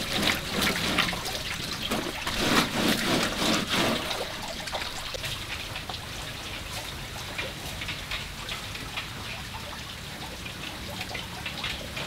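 Water splashing and trickling, with many small splashes, busier and louder for about the first four seconds and then lighter and sparser.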